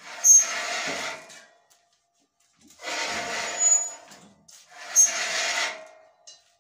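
Long threaded steel rod being worked through a hole in a steel band saw mill frame, metal grating on metal in three strokes of a second or so each, with a brief high squeal at the start of some.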